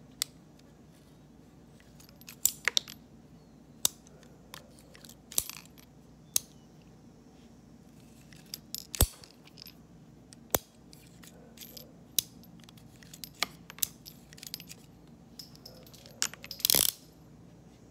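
Scattered sharp metallic clicks and clinks from a Hawes J.P. Sauer Western Marshall single-action .22 LR revolver being worked by hand, its cylinder and action clicking as it is handled, with a longer rattle near the end.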